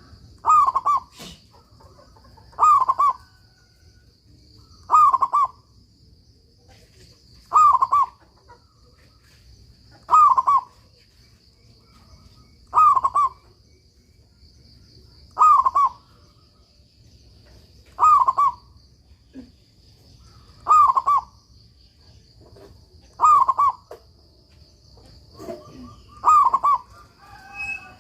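Local zebra dove (perkutut) singing in full voice, repeating its short cooing phrase about every two and a half seconds. A faint steady high-pitched tone runs behind it.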